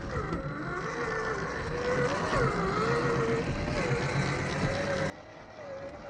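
Electric motor and geared drivetrain of a 1/10-scale RGT Rescue LC70 RC rock crawler whining as it crawls over rocks, the pitch rising and falling with the throttle. The sound drops sharply in level about five seconds in, and a quieter whine carries on.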